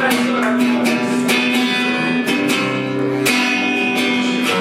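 Guitar strummed live, an instrumental passage of a grunge-rock song: repeated chord strokes, with the chords ringing on between them.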